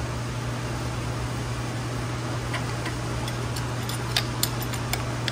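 Steady hum of a shop fan. From about halfway in comes a run of sharp, irregular metal clicks as a wrench is set on and worked against a cam sprocket bolt of a Subaru EJ25 engine while its timing belt is fitted.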